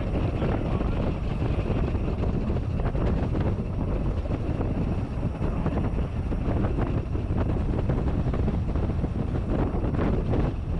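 Narrow-gauge steam locomotive No.3 'Sir Haydn', an 0-4-2 saddle tank, running along the line as heard from its cab. A steady, loud mix of exhaust, motion and wheels on rail.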